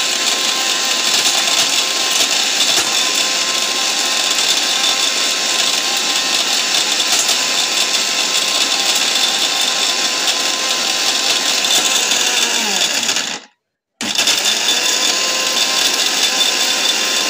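Novena 1200-watt mixer grinder motor running at speed, with a steady high whine, grinding dried turmeric to powder in its small steel dry-grinding jar. About thirteen seconds in, the motor's pitch falls and the sound cuts out for half a second, then it is running at full speed again.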